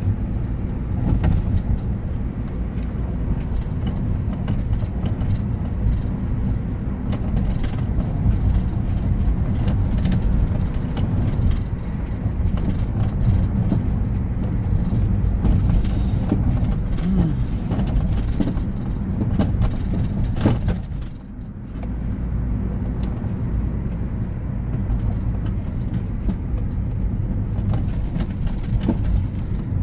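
Car driving, heard from inside the cabin: a steady low rumble of engine and tyres on a wet road, which dips briefly about two-thirds of the way through.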